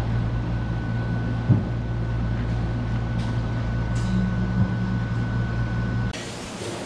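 Steady low machine hum with a thin high whine above it, like a motor, pump or refrigeration unit running, broken by a couple of light knocks. The hum cuts off about six seconds in.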